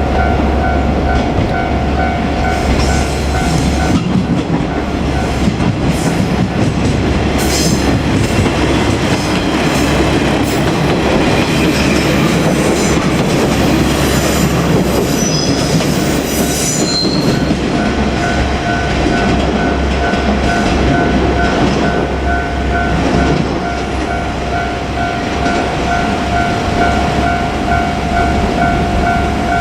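Level-crossing warning bell ringing in steady electronic pulses as a diesel train of KiHa 47-series railcars rolls over the crossing, with rumbling wheels and bursts of high wheel squeal. The bell is covered by the train from about four seconds in and is heard again for the last dozen seconds.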